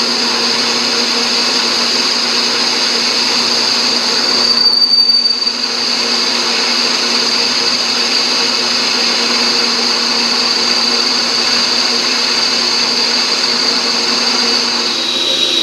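Metal lathe running while a thin form tool, fed at a 15-degree compound angle, cuts the angled side of a V-groove in a motor pulley: a steady, loud machining noise with a high ringing tone over the motor hum. The noise dips and changes briefly about four to five seconds in, then carries on as before.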